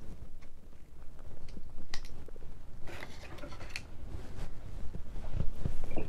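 Human stomach gurgling and rumbling while digesting, picked up close against the belly: an irregular low rumble with small squelching clicks, louder near the end.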